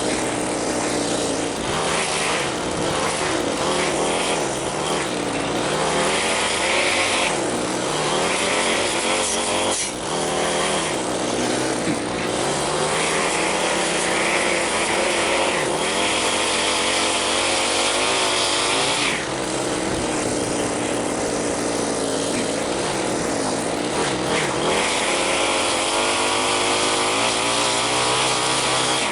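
Small gasoline engine of lawn equipment running continuously, its pitch wavering up and down as the load changes.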